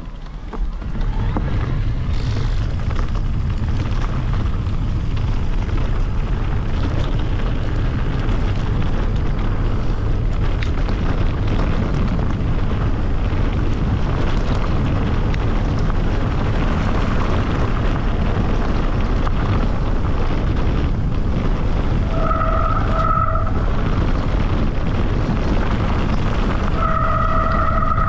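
Heavy wind buffeting on a GoPro's microphone while moving along a trail, a loud, steady low rumble. Twice near the end a short high squeal with overtones rises above it.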